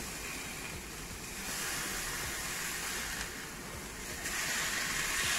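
Steak sizzling as it sears in a hot pan, a steady hiss that gets louder near the end.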